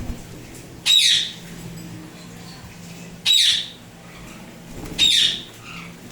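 Indian ringneck parrot squawking three times, each a short, loud call that falls in pitch.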